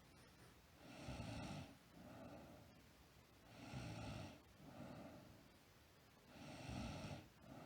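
A sleeping girl snoring in a slow, even rhythm. There are three stronger snoring breaths about three seconds apart, each followed by a softer breath.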